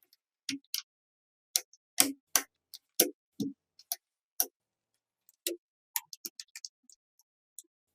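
Irregular light clicks and knocks of small craft parts being handled and set down on a work surface, about twenty of them with dead silence between. The loudest knocks come in the first half.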